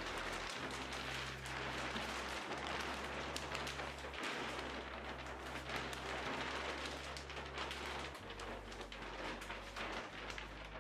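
A large sheet of black-and-white poly film (panda film) rustling and crinkling as it is unfolded and shaken out. A slow background music bass line runs underneath.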